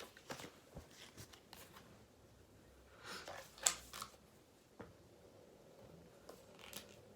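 Faint, scattered scratches and rustles of pencil writing on paper, with one sharper scrape a little past halfway.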